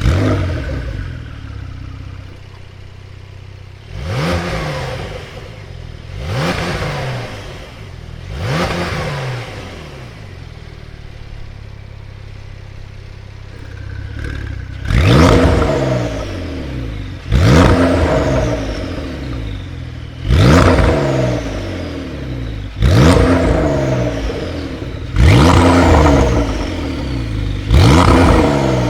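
Porsche 992 Carrera S twin-turbo flat-six with a Capristo valvetronic exhaust and 200-cell catalytic converters, revved while stationary. It settles from a start-up flare to idle, is given three moderate blips, idles for a few seconds, then takes six sharper, louder revs about two and a half seconds apart. Each of the later revs trails off with a falling high whistle.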